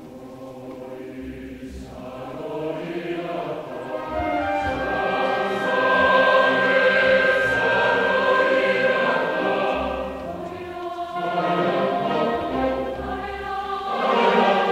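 Background music with a choir singing, swelling from soft to full over the first several seconds.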